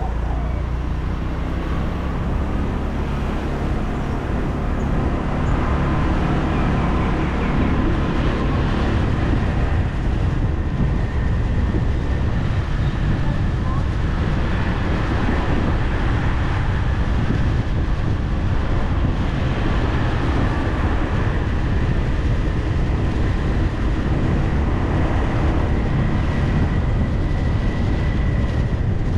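Motor scooter ride: the small engine running steadily under continuous wind and road noise, getting a little louder about six seconds in.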